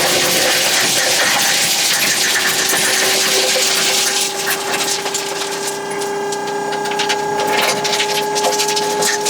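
Vehicle running on the road: engine and drivetrain noise with a steady whine that climbs slowly in pitch.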